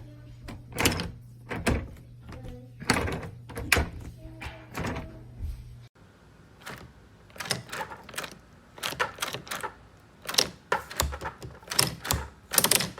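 Irregular sharp clicks and knocks from handling a smart door lock and the door it is fitted to, a few per second, with a faint steady hum under the first half.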